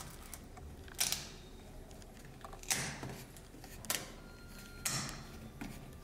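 A 3D-printed plastic doorbell housing handled and pressed onto a door frame: a handful of light clicks and short scrapes, a second or so apart.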